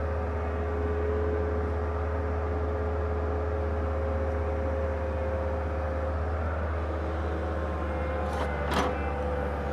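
Bobcat 863 skid steer's diesel engine running steadily with the 709 backhoe attached, with a couple of short sharp knocks near the end.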